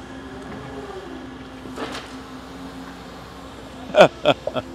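Caterpillar excavator's diesel engine running steadily, then a quick series of four loud metal clanks about four seconds in.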